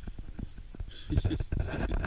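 Irregular footsteps and handling knocks from a handheld camera being carried along, growing busier and louder about a second in.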